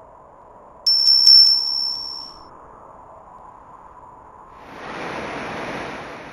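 A single high bell chime rings out about a second in and fades over about a second and a half. Near the end a rushing whoosh swells up and dies away.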